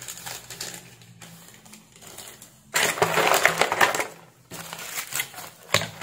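Clear plastic bag of electronic components crinkling and rustling as it is handled, with small clicks of parts shifting inside. A loud crackling stretch runs for nearly two seconds in the middle, with shorter bursts near the end.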